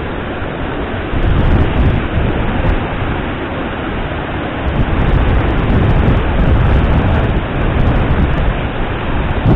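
Steady rushing roar of a large waterfall close by, with heavier low rumbling surges at times.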